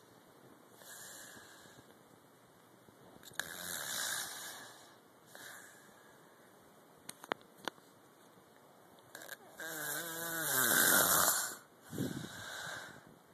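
Snoring: several separate snoring breaths, the loudest near the end with a pitched note that falls as it goes. Two small sharp clicks come midway.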